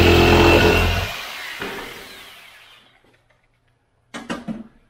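Handheld power tool running steadily as it cuts a square opening in the wall, switched off about a second in and winding down over the next two seconds. Near the end, a short clatter as the tool is set down on a table.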